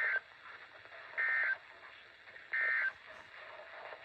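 NOAA Weather Radio SAME end-of-message (EOM) data burst: three short bursts of two-tone digital screech, each about a third of a second long and a little over a second apart, marking the end of the alert. Faint radio hiss lies between the bursts.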